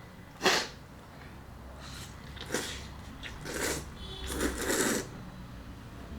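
A person eating very spicy instant noodles: a handful of short, breathy mouth sounds about a second apart.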